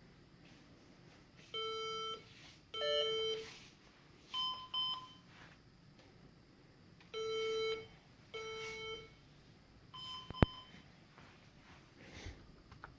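HP EliteDesk 800 G2 desktop computer's internal speaker beeping during a BIOS update. It sounds a repeating code of two longer low beeps followed by two short higher beeps, and the pattern comes twice. A sharp click, the loudest sound, comes right after the second pair of high beeps.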